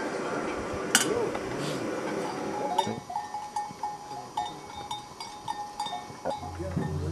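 Cattle bells clinking irregularly from about three seconds in, a string of short, clear notes. Before that comes a busier outdoor din with a sharp knock about a second in.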